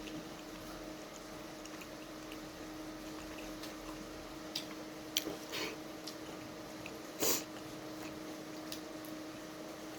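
Eating momos: a few short, wet chewing and smacking sounds, the loudest about seven seconds in, over a steady low hum.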